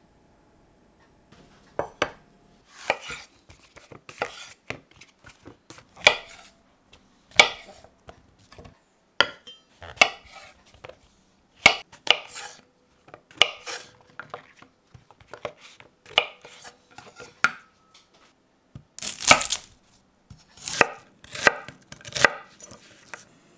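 A chef's knife cutting white mushrooms and then a white onion on a wooden cutting board. Each cut ends in a sharp knock of the blade on the board, at an unhurried, uneven pace, starting a second or two in. The loudest run of cuts comes near the end.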